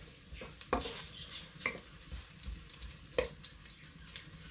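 Sliced onion sizzling as it sautés in hot oil, stirred with a wooden spatula that knocks against the pot a few times, the loudest knock about three seconds in.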